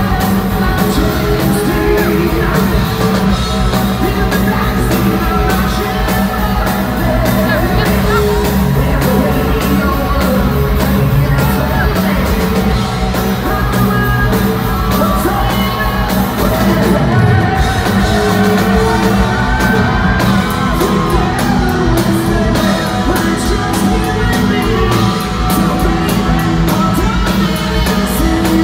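Live hard rock band playing: electric guitars and drums, with the lead singer singing over them.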